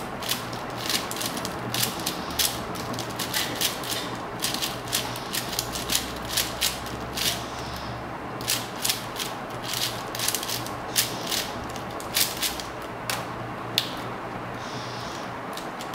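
A plastic 4x4 puzzle cube being turned by hand: quick, irregular clicking of the layers snapping round, several turns a second, thinning out near the end.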